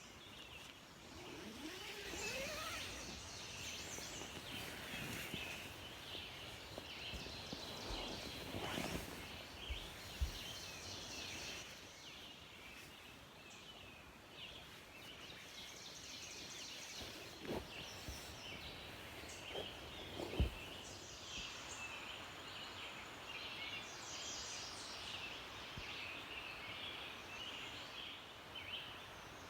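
Woodland birds singing in a steady chorus of overlapping chirps and trills, with a few soft knocks or handling thumps along the way.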